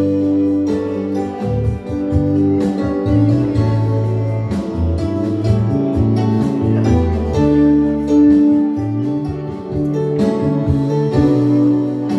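Instrumental worship music from a church band, with guitar over shifting bass notes and held chords.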